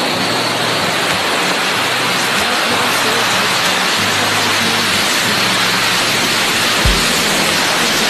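Loud, steady rush of wind over the microphone during a fast zipline ride, with one low thump of buffeting near the end.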